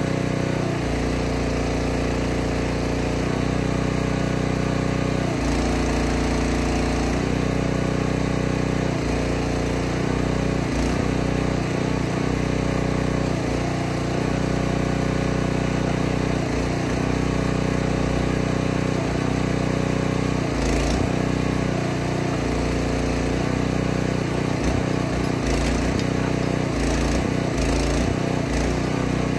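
Small engine running steadily to drive a forestry trailer's hydraulic log-loading crane. Its note shifts and recovers again and again as the crane is worked, swinging the grapple and lifting a log.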